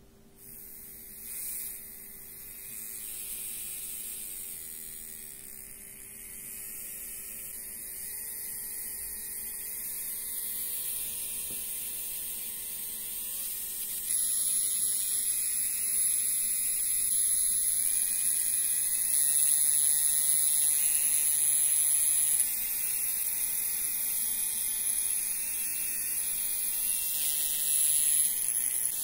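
Small 3 V brushed DC motor spinning and whining as the bench supply's voltage is turned up. Its pitch rises in steps and the sound gets louder, jumping near the middle, then it runs at a steady speed.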